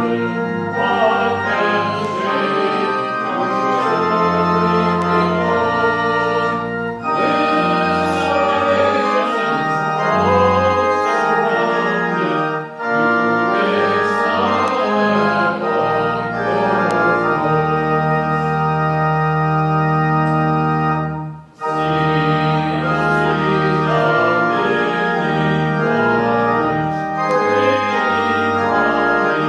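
Organ playing the opening hymn in sustained full chords over held bass notes, with two short breaks between phrases, about 13 and 21 seconds in.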